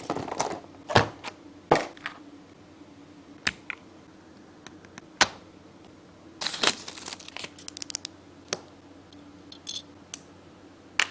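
Packaging being handled during an unboxing: scattered sharp clicks and knocks, with a longer stretch of crinkling and rustling about six and a half seconds in.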